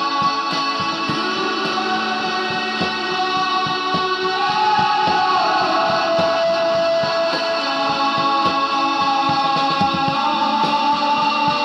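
A song with guitar: held notes ringing over a steady beat, with a sliding pitch bend about five seconds in.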